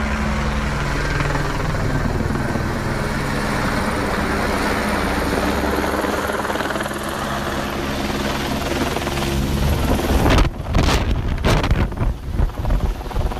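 Supply helicopter running close by, a steady loud rotor and engine drone; about ten seconds in it turns louder and gusty, with heavy rushing noise that surges and drops.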